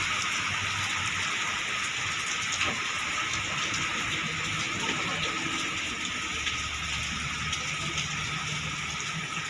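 Heavy rain falling on a flooded road and puddles, a steady hiss. A low engine hum sits faintly under it for a few seconds in the second half.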